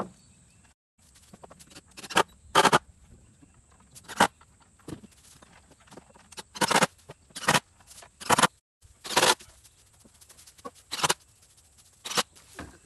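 Cordless drill/driver driving screws into wooden deck boards in about ten short bursts, each lasting a fraction of a second.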